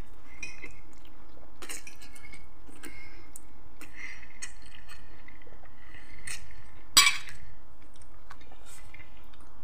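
Fork clinking and scraping against a glass bowl as spaghetti is twirled, between quiet chewing; one sharper clink about seven seconds in.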